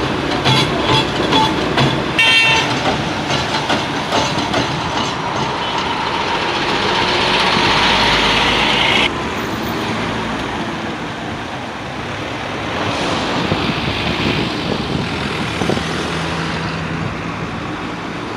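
Road vehicle noise at a street work site, with a short horn toot about two seconds in. A rising rush of noise stops abruptly about nine seconds in, then steady traffic noise continues.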